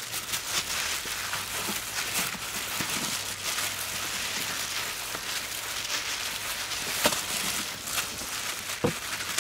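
Disposable plastic gloves crinkling and rustling as hands rub a wet herb and spice paste into a raw cow leg lying on banana leaves, a busy run of small crackles and clicks with one sharper crackle about seven seconds in.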